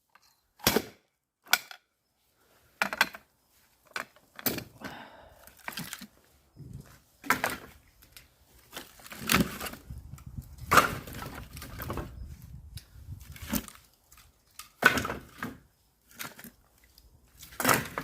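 Axe blows splitting firewood: about ten sharp chopping impacts at irregular intervals, with smaller knocks of wood pieces between them.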